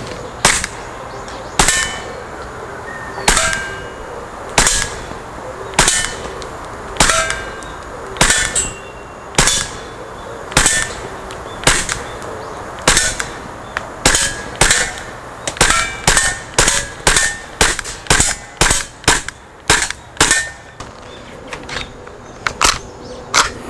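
Tokyo Marui Glock 17 Gen4 gas blowback airsoft pistol firing, each shot a sharp crack with the slide cycling. Single shots come about one every second and a bit, then a quicker string of about two a second over the latter part, with a few weaker shots near the end.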